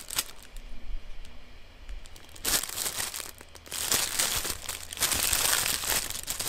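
Packaging crinkling and rustling as a camera lens is taken out of its wrapping: a few light clicks at first, then steady crinkling from about two and a half seconds in, louder from about four seconds in.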